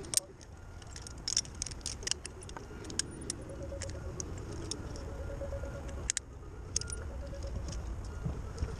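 Metal rope-access hardware, carabiners and rope devices, clinking and clicking irregularly in small clusters as gear is handled during a rope transfer. Under it runs a steady low rumble.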